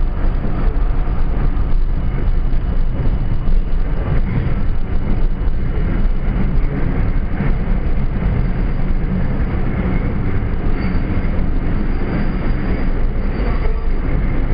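Subway train running on elevated track, heard from inside the car: a loud, steady rumble and clatter of the wheels on the rails. A faint high squeal comes in near the end.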